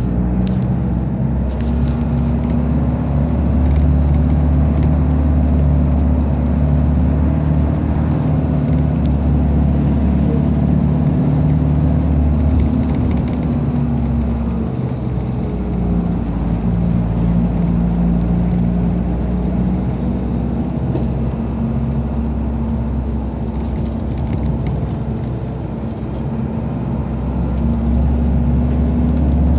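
A car driving, heard from inside the cabin: a steady low rumble of engine and road noise, easing briefly a little before the end.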